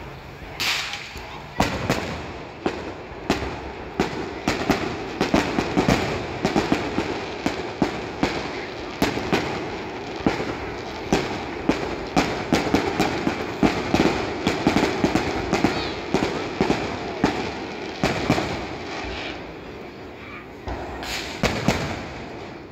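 Fireworks display: a rapid, dense string of sharp bangs and crackles from aerial shells bursting. It thins out near the end before a last short cluster of reports.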